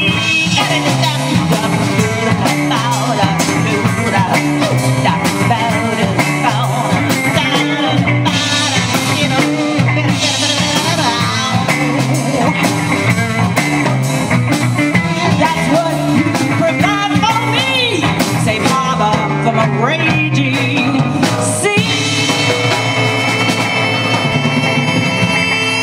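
Live rock band playing: electric guitars and a drum kit with vocals, at a steady beat.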